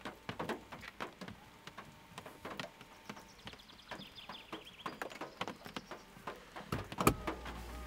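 Faint whirring of a car's electric door-mirror motors being adjusted in short runs, among scattered light clicks. A thump near the end is followed by a steady low hum.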